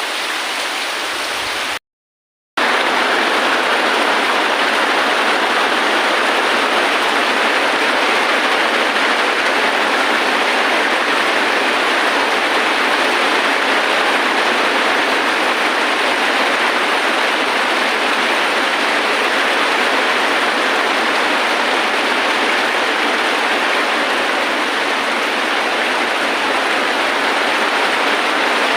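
Steady heavy rain, an even rushing hiss. It drops out to silence for about half a second about two seconds in, then comes back a little louder.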